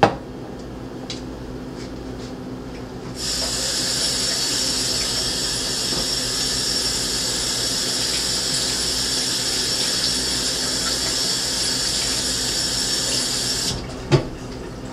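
Kitchen faucet running water into a sink for about ten seconds, starting and stopping sharply, with a short knock just after it stops.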